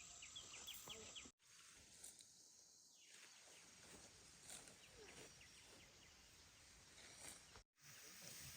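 Faint rural outdoor ambience with scattered short bird chirps. The sound cuts out completely for a moment twice.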